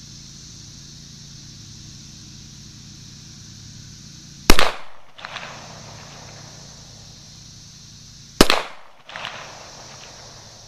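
Two shots from a Springfield XDM 5.25 .40-caliber semi-automatic pistol, about four seconds apart, each followed by an echo that dies away.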